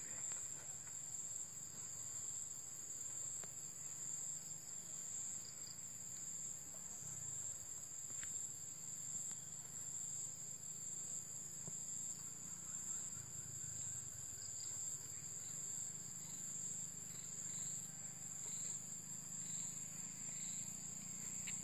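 Steady, high-pitched drone of insects calling without a break, with a faint low hum underneath.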